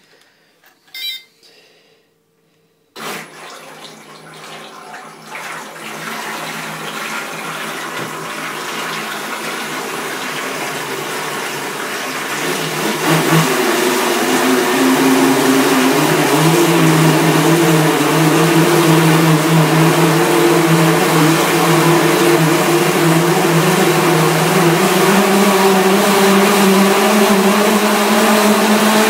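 Dual brushless motors of a converted Double Horse 7000 RC toy speedboat running while the boat is tethered in a bath, its propellers churning and spraying the water. After a couple of faint clicks it starts suddenly about three seconds in, then climbs to a louder, steady motor hum and water rush at about thirteen seconds.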